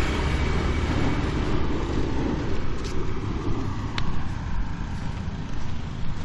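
A motor vehicle passing close by on the road, its engine and tyre noise fading away over the first few seconds. Two sharp clicks come about three and four seconds in.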